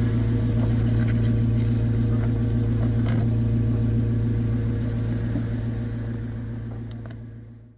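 Jeep Wrangler Rubicon's engine running steadily at low speed as it crawls over rocks, with a few faint clicks. The sound fades out near the end.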